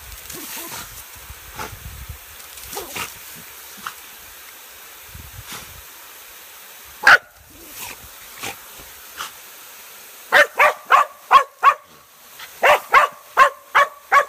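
McNab dog barking at a sprinkler's spray: one sharp bark about halfway through, then two quick runs of about six short, high barks each in the last few seconds, with softer sounds from the dog before that. The sprinkler's spray hisses faintly underneath.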